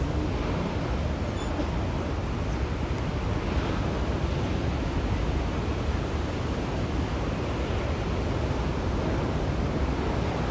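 Steady rush of ocean surf breaking, with wind rumbling on the microphone.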